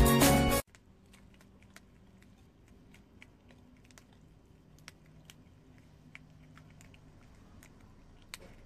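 Background music cuts off suddenly about half a second in. After that, prairie dogs nibble dry, uncooked instant ramen noodles, making faint, irregular crisp crunches and clicks.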